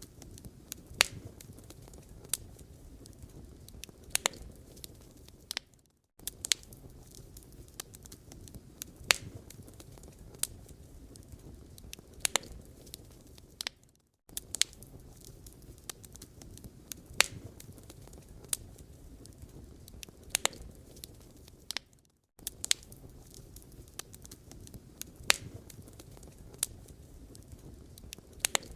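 Wood fire burning in a fireplace: a steady low rumble with sharp crackles and pops scattered about once or twice a second. The sound breaks off to silence for a moment three times, about every eight seconds.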